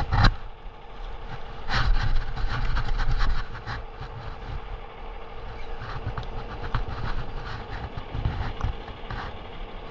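Irregular rustling, scuffing and clicking handling noises over a low steady rumble, loudest between about two and four seconds in.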